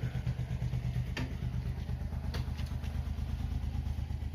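A small engine idling steadily, with a couple of light knocks about one and two seconds in.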